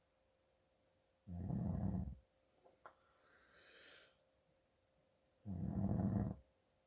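A man snoring through a congested nose: two loud snores about four seconds apart, each lasting about a second.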